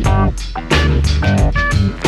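Background music: a song with guitar, bass and drums keeping a steady beat.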